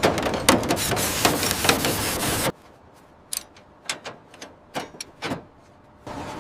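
A dense mechanical clatter of clicks and knocks over a noisy hiss that cuts off suddenly about two and a half seconds in, followed by a quieter stretch of about eight separate sharp clicks and knocks.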